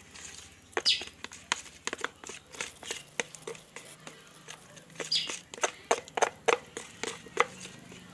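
A utensil stirring a thick homemade slime mixture in a small container, giving irregular clicks and taps with a couple of brief wet, hissy scrapes.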